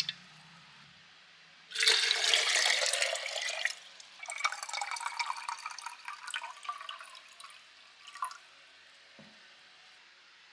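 Water poured from a glass measuring jug into a cold-brew bottle in two pours, the stream splashing in, then thinning and trailing off, its pitch rising slightly as the bottle fills. A single soft thud comes near the end.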